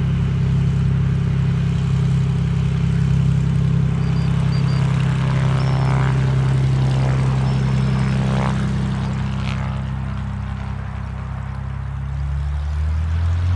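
Light propeller aircraft's piston engine running with a steady low drone; its note drops lower near the end.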